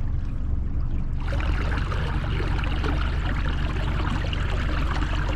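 Boat's outboard motor running steadily at trolling speed, with a rushing wash of water along the hull joining in about a second in.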